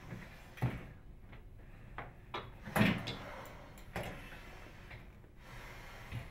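A few separate knocks and clicks from handling a microwave oven's door, the loudest about three seconds in.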